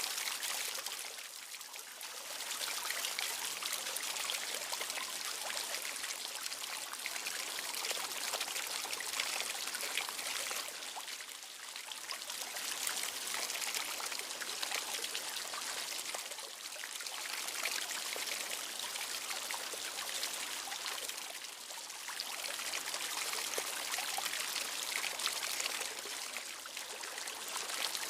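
Running water flowing steadily, easing off briefly every five seconds or so.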